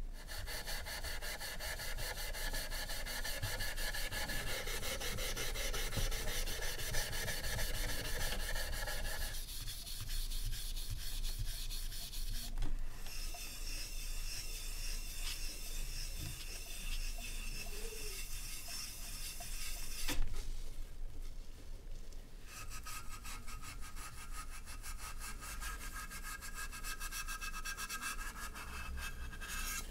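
Steel wool scrubbing the corroded brass body of an old kerosene lamp: a steady, fast scratchy rubbing of many short strokes, scouring off rust and corrosion. It breaks off briefly partway through and goes duller for a couple of seconds about two-thirds of the way in.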